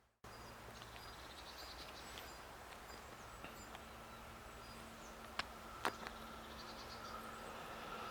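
Faint rural outdoor ambience: a steady hiss with scattered small high chirps of birds and insects, and two sharp clicks about half a second apart a little past the middle. A faint steady tone slowly grows louder toward the end.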